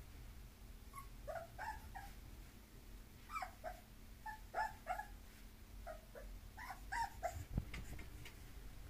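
Bulloxer puppy whimpering in short, high whines, in little clusters of two or three, about a dozen in all, with a single low thump near the end.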